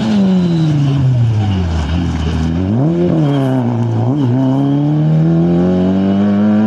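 Peugeot 106 XSi rally car's engine driven hard. The revs fall as it slows for about the first two seconds, pick up sharply, blip briefly, then climb steadily as it accelerates away.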